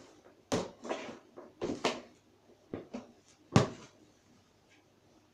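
Plastic scoop knocking and scraping against a plastic cage tray as used rabbit litter is shovelled together, a series of sharp knocks and scrapes with quieter rustling between them.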